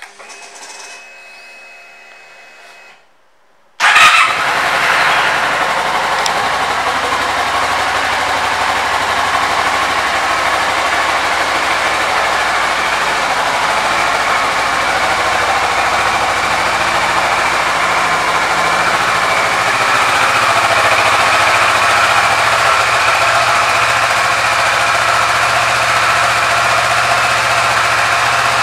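A 2009 Kawasaki ER-6n's 649 cc parallel-twin engine: a faint hum once the ignition is on, then the engine starts suddenly about four seconds in and settles into a steady idle.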